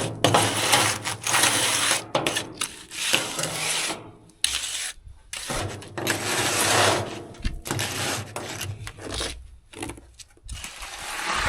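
A hand trowel scraping and smoothing freshly mixed cement into a concrete patch, in repeated rough strokes with short pauses between them.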